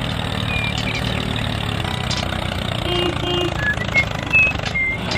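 Tractor diesel engine running steadily with an even, fast knocking rumble, a few short high chirps sounding over it.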